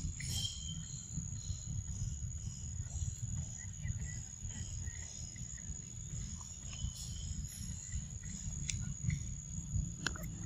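Steady high-pitched drone of insects, with a few faint chirps, over a low rumble that rises and falls.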